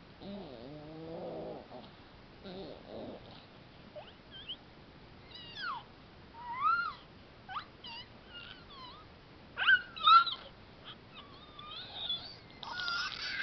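A five-month-old baby's voice: some low murmuring sounds at first, then from about four seconds in a string of short, high-pitched squeals and squeaks that slide up and down in pitch, loudest near ten seconds and at the end.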